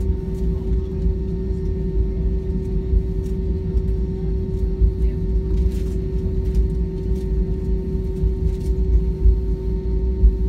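Airbus A320 cabin while taxiing: the engines and rolling wheels make a steady low rumble with a constant hum over it, and a few faint clicks come through.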